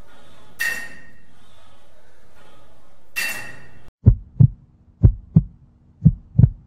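Deep double thumps like a heartbeat, one pair about every second, over a low steady hum, starting about four seconds in. Before that, a steady hiss with two bright swooshing hits.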